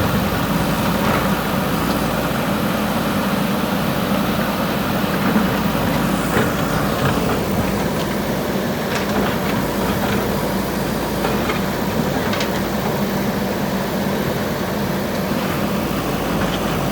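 JCB 3DX backhoe loader's diesel engine running steadily, with a few short knocks.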